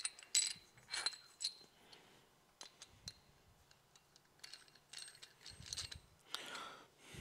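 Faint clinks and ticks of small metal parts as a highway-peg clevis and footrest arm are handled and screwed together by hand, a few close together in the first second and a half, then more scattered.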